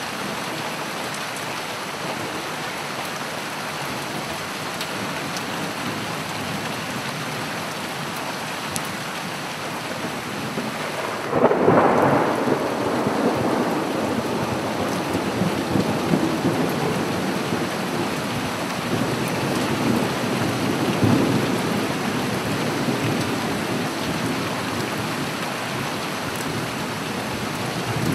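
Steady rain, with a peal of thunder breaking in about eleven seconds in and rumbling on for several seconds.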